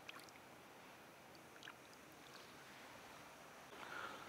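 Near silence: faint water at the edge of the shallows, with a few soft ticks.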